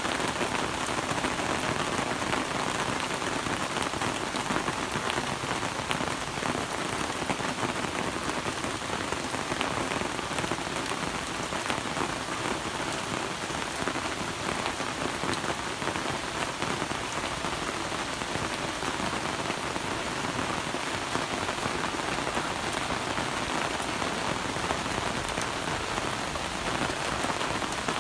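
Steady rain falling, an even hiss with the patter of individual drops and no let-up.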